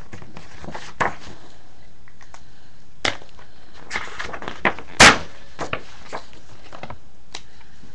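Writing by hand on paper close to the microphone: a handful of sharp taps and knocks of pen and hand against the pad and desk, spread about a second apart, the loudest just after five seconds in.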